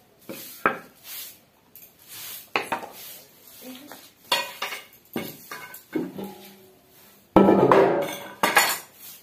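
Homemade grass broom swishing across a concrete floor in short strokes, mixed with metal clanks as an aluminium basin and an iron tool are picked up and set down. The loudest clatter, the basin scraping and ringing against the concrete, comes near the end.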